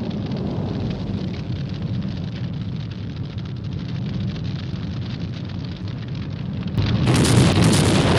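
Explosion sound effect from a vintage sound library: a low rumble with fine crackling that slowly dies down, then a new, louder blast breaks in about seven seconds in and keeps going.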